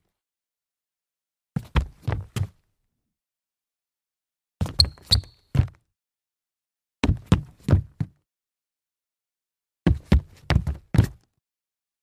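Sneakers stumbling forward on a wooden floor, four times over: each stumble is a quick, uneven cluster of heavy footfalls and scuffs lasting about a second, with silence between. The second stumble has two short high squeaks in it.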